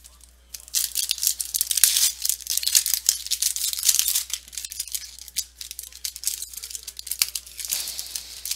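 Foil wrapper of a Bowman Chrome baseball card pack being torn open and crinkled, with the cards rustling against it, starting about half a second in.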